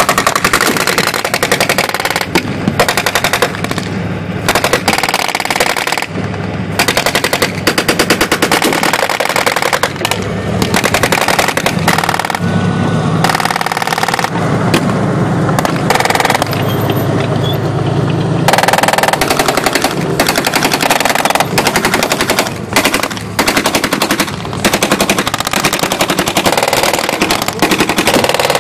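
Machine guns firing blanks in rapid bursts, one after another, over the steady running of the armoured vehicle's engine close underneath.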